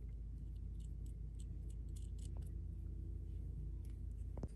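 Faint, scattered light clicks of small steel screws and T-nuts being handled and threaded onto a small metal bracket by hand, with a sharper click near the end, over a steady low hum.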